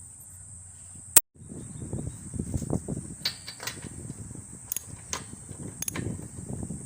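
Irregular clicks and light clatter of hand tools and a spark plug being handled and fitted into a Briggs & Stratton lawnmower engine, with a sharp click about a second in.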